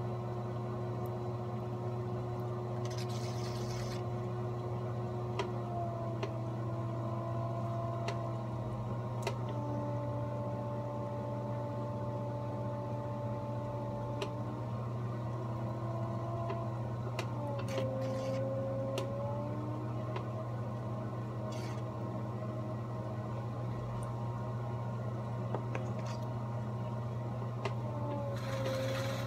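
Electric potter's wheel running: a steady low motor hum with a whine that steps down and up in pitch several times. A brief rubbing hiss comes about three seconds in and again near the end.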